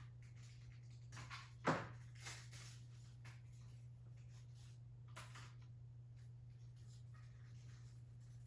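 Faint clicks and taps of small clock parts being handled, with one sharper click a little under two seconds in, over a steady low hum.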